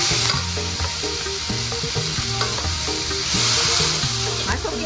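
Dried anchovies (teri) with chili paste sizzling as they fry in hot oil in a metal wok, stirred and scraped with a metal spatula. The sizzle gets a little louder past three seconds in.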